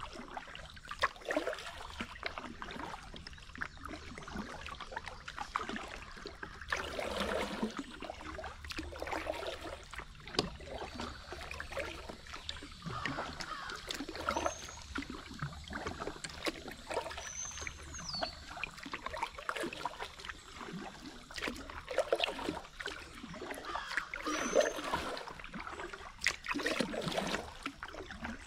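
Kayak paddle dipping and pulling through calm river water in irregular strokes, with splashes and drips off the blades. A bird chirps briefly three times.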